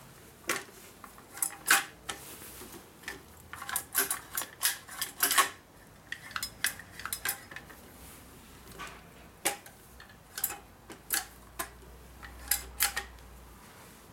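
Sharp clicks and clatter of a long-handled, T-grip weed puller being handled and worked: hard plastic and metal parts knocking together, in an irregular quick run in the middle, then scattered single clicks.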